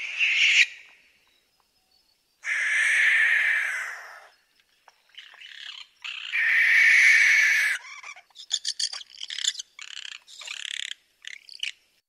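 Ashy-faced owl (Tyto glaucops) screeching: two long, harsh, hissing screeches of nearly two seconds each, then a quick run of short rasping notes in the last few seconds.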